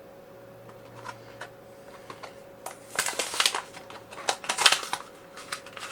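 Plastic and cardboard toy packaging being handled and opened by hand: a few light clicks, then two bursts of crinkling and clicking about three seconds in and again about a second and a half later.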